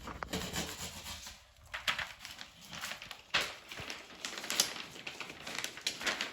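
Faint, irregular rustling and light tapping of materials being handled.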